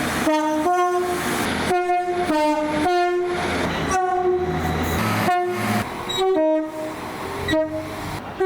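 Train horn sounding a rapid series of short blasts, about a dozen in all, some only a fraction of a second long. Train rumble lies under the middle blasts.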